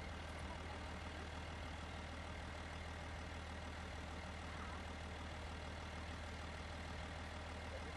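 SUV engine idling steadily, a low even hum that doesn't change.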